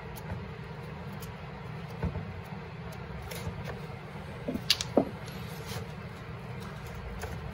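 A few brief, sharp clicks and clinks of small metal parts being handled by hand, the two loudest close together about five seconds in, over a steady low hum.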